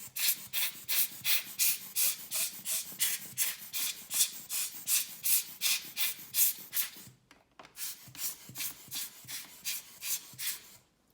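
A paintbrush's bristles swept briskly over a laptop's insides to clear dust, in quick even strokes about three a second, with a short pause about seven seconds in.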